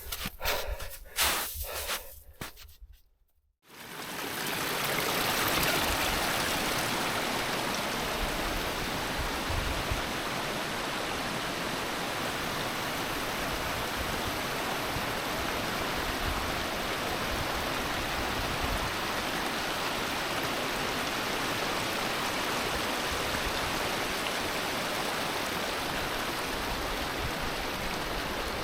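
Steady rushing of a mountain stream. It starts about four seconds in after a brief gap and holds unchanged.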